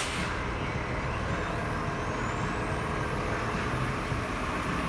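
Muni bus standing at a stop: a steady low engine and traffic rumble, with a faint high whine rising about two seconds in.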